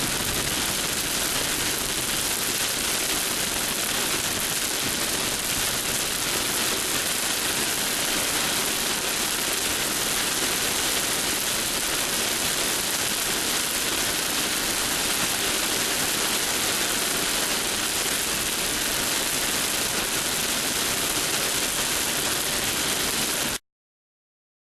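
A steady, even hiss with no rhythm or pitch, strongest in the high range; it cuts off suddenly about a second before the end.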